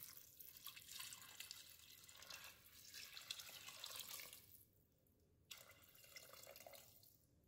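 Water poured from a plastic pitcher into the stainless steel inner pot of an Instant Pot full of beans and vegetables: a faint trickling splash that drops out for about a second midway.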